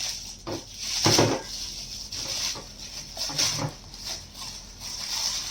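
A gift mug being unpacked and handled: packaging rustling, with several short knocks and clinks, the loudest about a second in.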